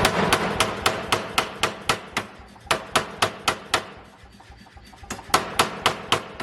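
40 kg pneumatic forging air hammer striking in rapid runs of blows, about three a second, with a short gap and then a longer pause before a final run. A steady low hum runs underneath.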